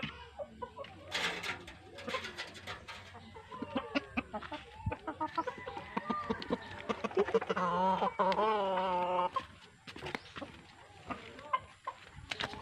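Rhode Island Red chickens clucking close by, with a louder, long wavering call from about seven and a half to nine seconds in. Short knocks and rustling come from moving about among the bamboo fence.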